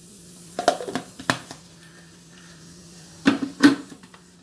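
Clunks and clicks of a stainless-steel mixer-grinder jar being set onto its plastic base and its plastic lid fitted on. There are a few sharp knocks about a second in and two more past the three-second mark. The grinder is not yet running.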